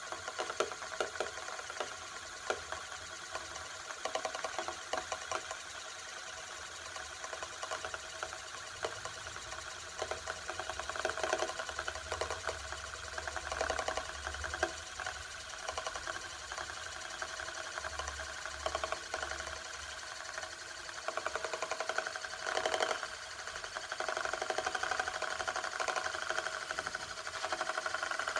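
Euler's disk, a heavy metal disk, spinning and rolling on its edge on its mirror base: a steady, rapid whirring rattle of metal on glass that just keeps going.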